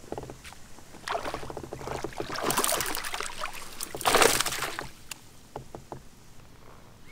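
Water splashing and sloshing as a hooked fish is scooped into a landing net beside a kayak, in two splashy spells, the louder one about four seconds in.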